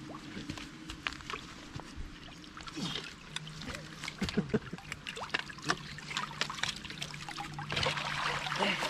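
Canal water trickling and pouring off a bicycle just hauled up on a fishing magnet, with scattered drips and small clinks; the pouring gets heavier near the end.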